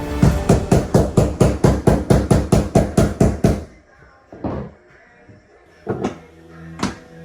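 Background music with a fast, steady beat of about four strikes a second that drops out about three and a half seconds in, followed by a few single hits and held tones.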